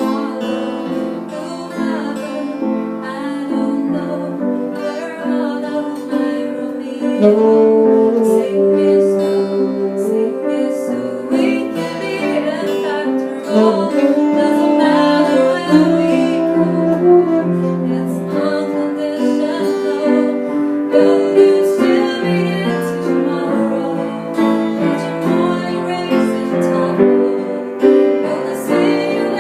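A woman singing a song, backed by a band with piano and guitar.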